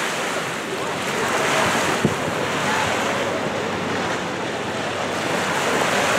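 Sea waves washing on a sandy beach, with wind buffeting the microphone: a steady rushing noise that swells and eases a little.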